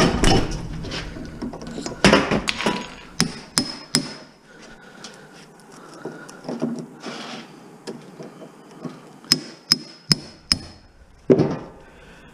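Hammer blows on a homemade metal extractor tool, driving it through an electric motor stator to cut out the copper windings: sharp metal-on-metal strikes with some scraping. They come irregularly at first, then as a quick run of four ringing strikes and one heavier blow near the end.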